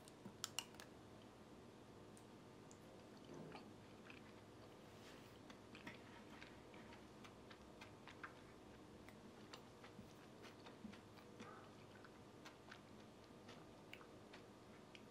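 Faint sounds of eating: a metal spoon clinks against a ceramic bowl a few times about half a second in, followed by soft chewing of soy-milk sujebi with scattered small clicks of the spoon.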